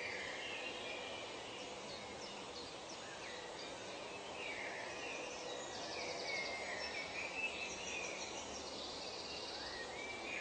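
Nature ambience of several birds calling in short gliding phrases over a steady background hiss, with fast high trills about halfway through and again near the end.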